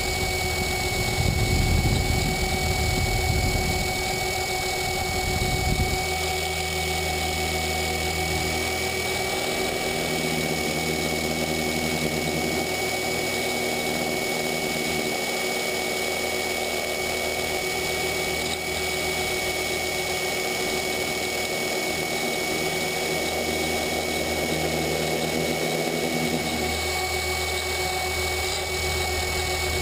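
Onboard sound of a T-Rex 500 electric RC helicopter in flight: a steady whine with an even low hum beneath it. The low end is rough for the first six seconds, then settles.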